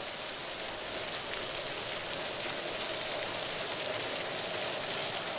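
Rows of ground-level fountain jets spraying up and splashing back onto wet paving: a steady hiss of falling water.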